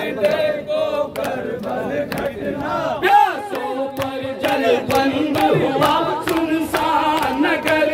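Men chanting a noha, a Shia mourning lament in Urdu, in unison, a lead voice carried by a microphone with the crowd singing along. Under the voices runs a steady rhythm of sharp hand slaps from matam, the ritual beating of the chest.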